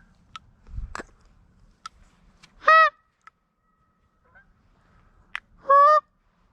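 Two loud goose honks about three seconds apart, each a short call that rises slightly and then holds. A few light clicks and a low thump come about a second in.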